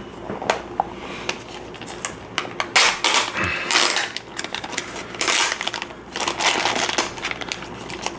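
Plastic blind-pack packaging of a Num Noms toy being handled and opened: irregular clicks, taps and crinkling, with the busiest crackling about three seconds in and again a little past six seconds.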